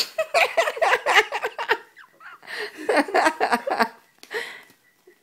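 Little corella (cockatoo) chattering in a talking, laughing voice, in two runs of about two seconds each and a short call near the end. It is read as the bird claiming the food as 'my Macca's'.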